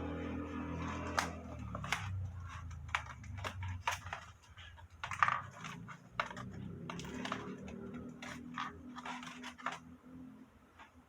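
Fingers handling and positioning a dried cicada specimen's hind legs: irregular light clicks and scratches, over a low steady hum that fades near the end.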